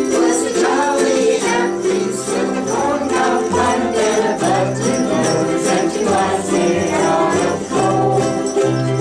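A ukulele group strumming and singing a Christmas song together, with jingle bells shaking along in rhythm.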